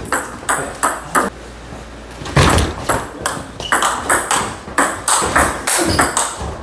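Table tennis ball being hit back and forth, sharp clicks off the paddles and table in a rally. There is a lull of about a second early on, then a quick, steady run of clicks.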